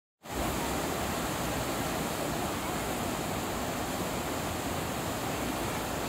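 Rushing mountain river rapids: white water pouring over boulders, a steady, even rush of water.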